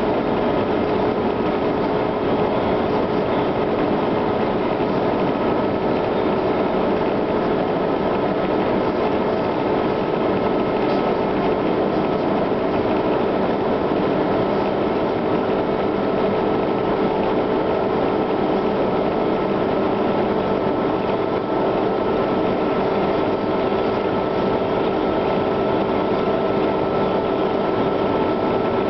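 Humvee's V8 diesel engine and drivetrain droning steadily at highway speed, heard from inside the cab, with a constant whine over tyre and road noise.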